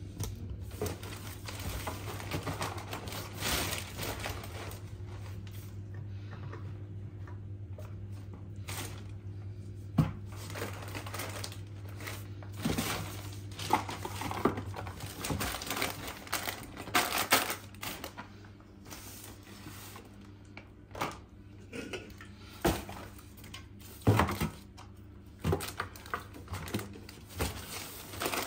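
Groceries being packed into a plastic carrier bag inside a cardboard box: the bag rustling and crinkling, with irregular knocks and clinks as tins, cans and packets are set down. A steady low hum runs underneath until about halfway through.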